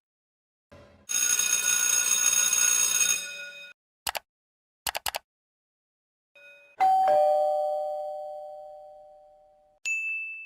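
A string of separate sound effects. About a second in comes a bright ringing tone lasting a few seconds, then a few short clicks, then a two-note doorbell ding-dong (high then lower) that rings out and fades over about three seconds. A short high tone starts near the end.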